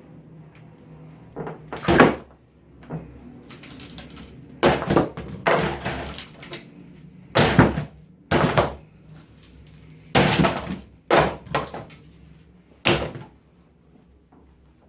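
A series of irregular knocks and clatters, about ten in all, some in quick pairs, of hard objects being knocked about and set down.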